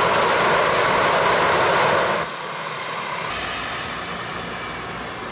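Jet go-kart's turbine engine running with its afterburner lit, a loud steady roar that cuts off suddenly about two seconds in. The engine then winds down with a fading, slowly falling whine.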